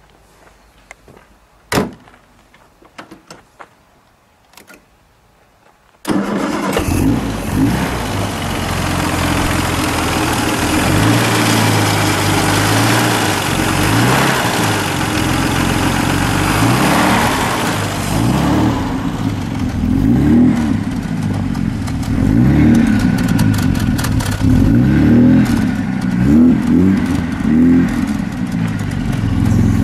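1938 SS Jaguar 100's 3½-litre straight-six engine starting: a few faint clicks, then about six seconds in it catches suddenly and runs. The throttle is blipped again and again, the revs rising and falling, with a steadier idle between the blips in the second half.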